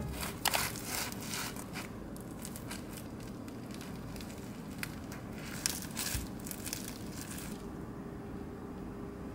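A knife sawing through a crisp croissant on a wooden cutting board, the flaky crust crackling in two spells with a soft knock on the board in between.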